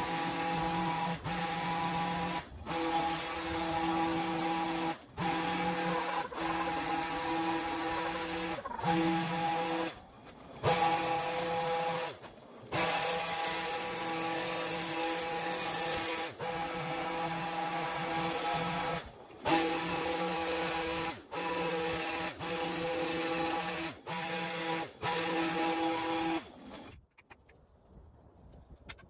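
Electric motor of a battery-powered garden power tool whining at a steady pitch, cut off and restarted many times in short runs, and stopping for good near the end.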